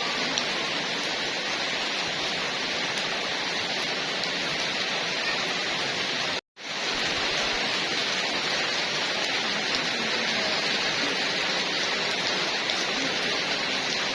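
Heavy rain falling steadily. The sound cuts out completely for a split second about six and a half seconds in, then comes back.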